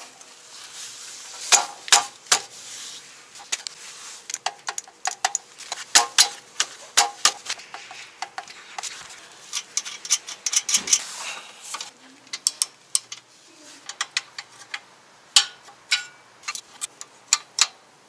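Scattered sharp metallic clicks and clinks from a spanner and the drive chain while the chain adjuster at the rear axle of a Honda Super Cub 110 is turned to set the chain slack.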